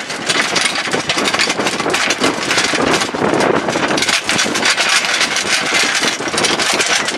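Boat engine running steadily while the boat is under way.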